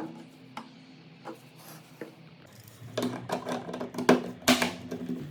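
Scattered light clicks and knocks from handling small hard parts during wall switch and socket replacement: a few single clicks in the first half, then a busier run of them in the second half.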